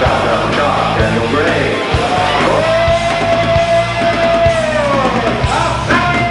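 Rock music soundtrack with electric guitar and drums, and one long held note through the middle.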